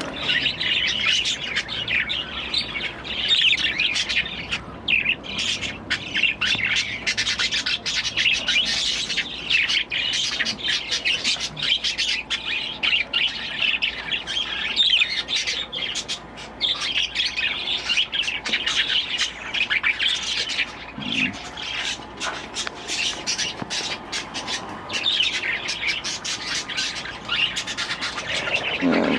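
A flock of budgerigars chattering: busy, continuous chirping from many birds at once, with occasional squawks.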